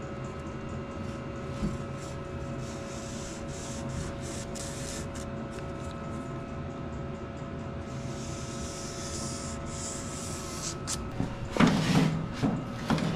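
Steady shop hum with faint rubbing and handling noise. A little over a second before the end come louder knocks and scraping as a steel piece is handled and fitted into place.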